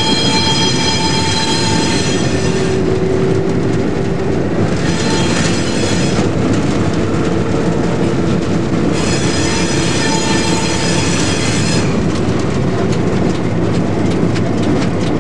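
EMD diesel locomotive rolling over curving track, a steady rumble of engine and wheels with high wheel squeal coming and going in stretches as the flanges grind on the curve. A run of rapid clicks comes near the end.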